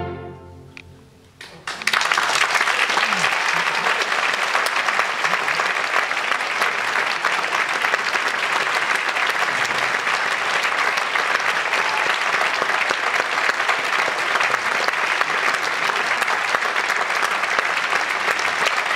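The orchestra's final chord rings away in the hall, and after a short hush the audience starts applauding about two seconds in. Steady, dense applause from a large concert audience follows.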